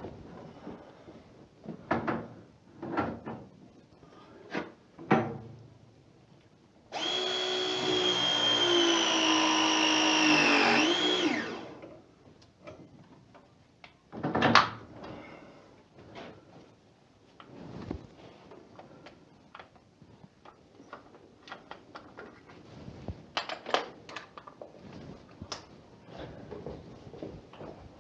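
Battery-powered pipe press tool running one press cycle of about four and a half seconds: a steady motor whine that dips in pitch just before it stops, crimping a press fitting onto the pipe. Scattered handling clicks and knocks around it, with a sharper knock a few seconds after.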